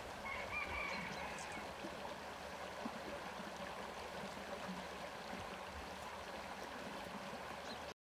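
Faint, steady sound of shallow stream water running, with a brief faint bird call about a second in.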